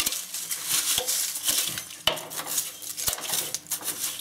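Dry leaves and grass debris being scraped and scooped by hand off a ride-on mower's cutting deck around the belt pulley: a crackly rustling broken by many small clicks and knocks against the deck.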